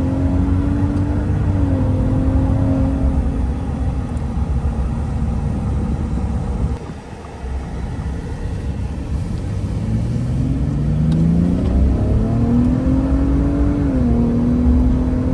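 2021 Ford Raptor's twin-turbo 3.5L EcoBoost V6, fitted with a big-turbo kit, being driven on the road. The engine drones steadily, eases off briefly about seven seconds in, then pulls again with a rising pitch. The tone drops in steps, as at gear changes.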